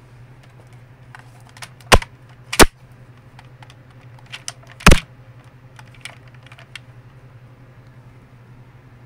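Handling noise: sharp plastic clicks and knocks, three loud ones about two, two and a half and five seconds in, with lighter taps between, over a steady low hum.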